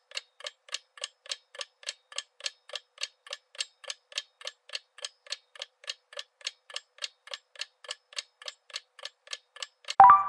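Clock-ticking sound effect of a quiz countdown timer, about four even ticks a second. Near the end a short, louder bright ding marks that time is up.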